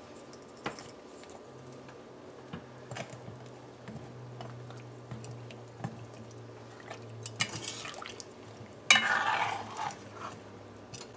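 Metal spoon stirring mango pieces and sugar in a pot of water, with scattered clicks of the spoon against the metal pot and water sloshing. Two louder swishes come in the last few seconds.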